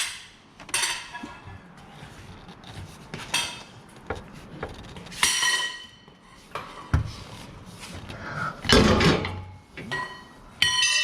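Scattered metal clinks and knocks of tools and parts being handled, a few ringing briefly, with a heavier knock near the end.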